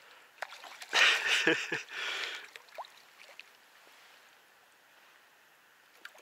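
Water splashing briefly about a second in, as a hooked fish is played at the surface.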